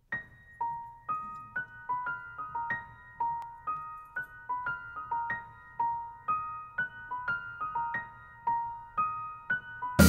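Solo keyboard opening a jazz piece: a repeating figure of single high notes, each struck and left to ring briefly, about two to three notes a second.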